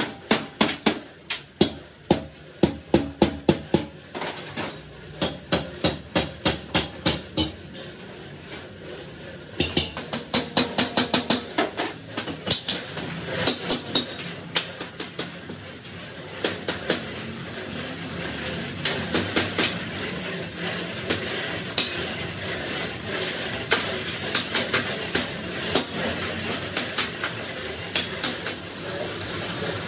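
Small hand hammer striking a dished steel end cap seated on the rim of a rolled steel air-compressor tank shell, in quick runs of sharp metallic taps, several a second, with short pauses between runs.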